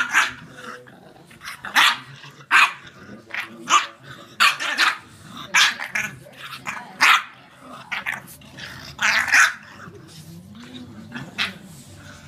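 Two dogs play-fighting, with a dozen or more short, sharp barks coming irregularly, often about a second apart, and growling between them.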